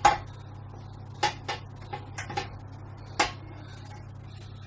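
A utensil knocking and clacking against a cooking pan about seven times while pasta is spooned out into a tray, the loudest knocks just after the start and about three seconds in, over a steady low hum.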